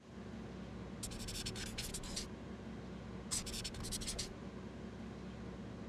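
Two short runs of scratchy writing strokes on paper, the first about a second in and the second about three seconds in, over a faint low hum.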